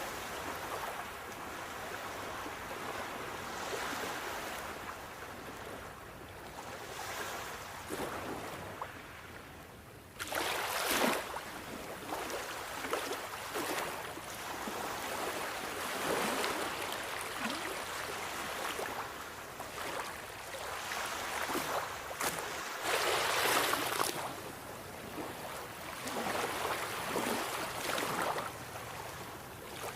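Sea waves breaking and washing in, the surf swelling and falling away every few seconds. The level jumps up suddenly about a third of the way through, and the loudest surges come just after that jump and again about three quarters of the way through.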